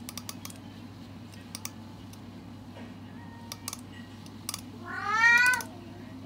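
Sharp little clicks of a thumb flicking the teeth of a plastic comb. About five seconds in, a silver tabby cat gives one loud meow that rises in pitch.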